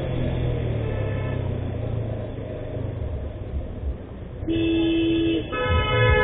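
Low rumble of a motorcycle riding slowly in town traffic. About four and a half seconds in, two vehicle horns honk one after the other: a lower horn held about a second, then a higher-pitched one.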